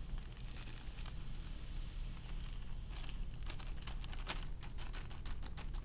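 Craft sand pouring from a plastic zip-top bag into a glass, with the plastic bag crinkling as it is handled; the crackles come more often in the second half. A steady low hum runs underneath.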